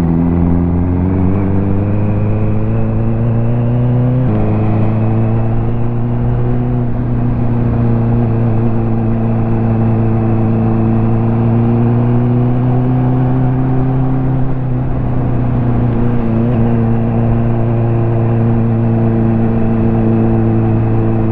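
Ducati motorcycle engine under way: revs climb for about four seconds, fall sharply as it shifts up a gear, then hold at a fairly steady cruise, with a brief dip in revs about three quarters of the way through.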